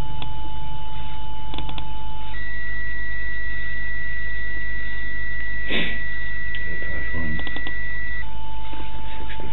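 Steady electronic beep tone over a constant low hum; about two seconds in the lower tone gives way to a higher one, which switches back to the lower tone near the end. A short burst of noise a little past halfway and a few brief crackles after it.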